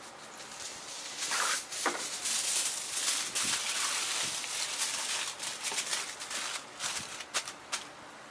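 Food sizzling in a hot Turk wrought-iron frying pan over a campfire, a steady hiss dotted with sharp pops and crackles. The sizzle swells about a second in and dies down near the end.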